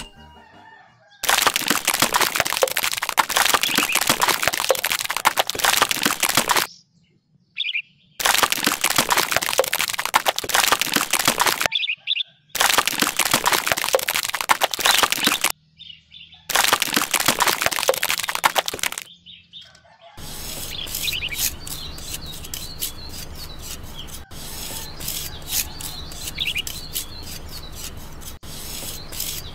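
Wet concrete slurry pouring from a small mixer drum in four long spells of dense splashing noise, each cut off abruptly. In the last third, a small trowel scrapes and smooths the wet concrete in quick, regular strokes over a low steady hum.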